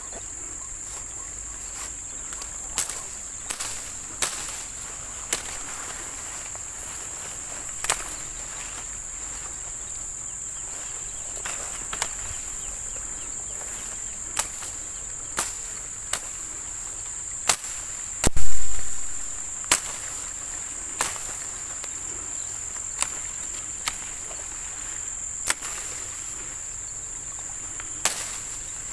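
Insects droning at one steady high pitch, with sharp clicks and knocks every second or two. A louder thump with a low rumble comes a little past halfway.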